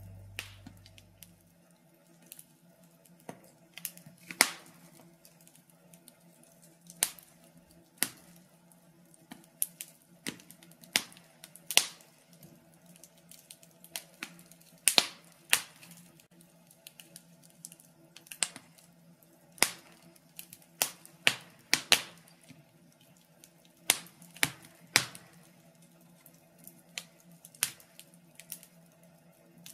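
Wood fire in a fireplace crackling, with irregular sharp pops and snaps every second or so over a faint steady hum.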